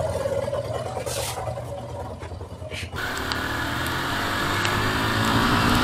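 Motorcycle engine running at idle; about three seconds in the sound changes abruptly to the bike under way, its engine pitch slowly rising as it accelerates over a steady hiss.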